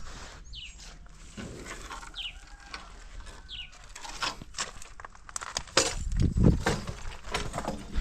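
Dogs eating and lapping from a bowl: irregular slurping and chewing noises that grow louder about six seconds in, with a few short, high, falling chirps in the first half.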